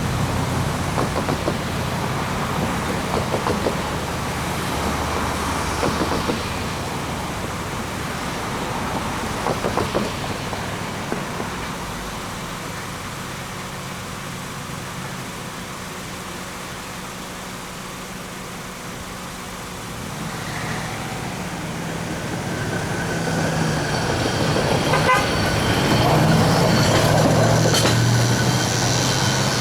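A freight train moving through a grade crossing, with a horn sounding. The sound dips in the middle, then builds again over the last several seconds with several high, steady tones.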